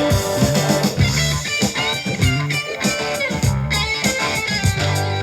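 Rock music with electric guitar and bass, no singing.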